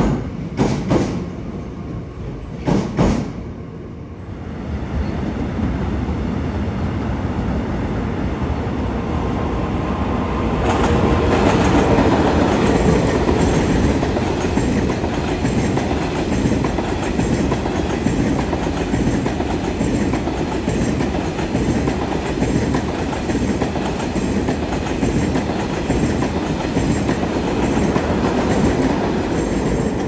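Train wheels passing over rail joints: a few sharp clacks in the first three seconds, then, after a short lull, a second train rolling past with a steady rumble and clatter that grows louder about ten seconds in.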